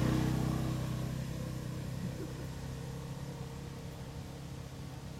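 A motor vehicle's engine running steadily, slowly fading as it moves away.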